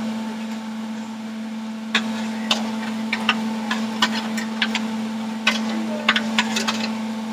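Blender motor running with a steady hum, with irregular sharp clicks and knocks that become frequent from about two seconds in.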